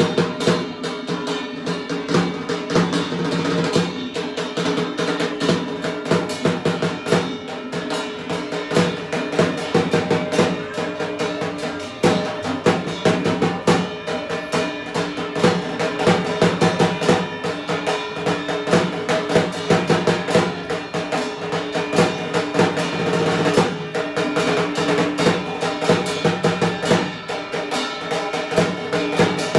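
Temple evening aarti music: fast, continuous drumming over sustained ringing tones.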